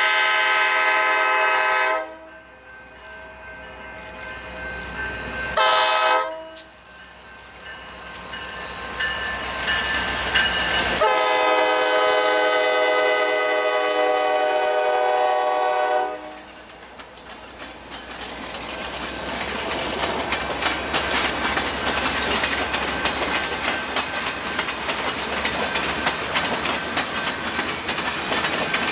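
Diesel passenger locomotive's multi-note air horn sounding: a long blast ending about two seconds in, a short blast near six seconds, then a long blast of about five seconds, in the pattern of the end of a grade-crossing signal. The train then rolls past, louder as it nears, its wheels clicking rapidly over the rail joints.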